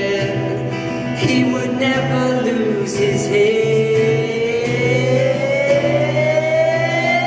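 Male voice singing long, drawn-out wordless notes over strummed acoustic guitar; the sung pitch sinks a little, then slides upward through the second half.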